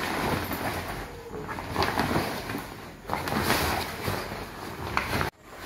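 A large cloth tablecloth rustling and swishing as it is unfolded and spread out by hand, in several swells. The sound cuts off abruptly near the end.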